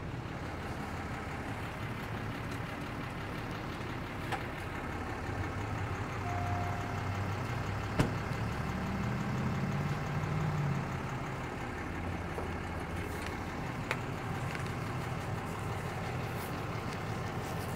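Motor vehicle engines idling with a steady low hum, and one vehicle's engine rising in pitch about nine to eleven seconds in as it pulls away. A short beep sounds at about six seconds, and a sharp click at about eight seconds.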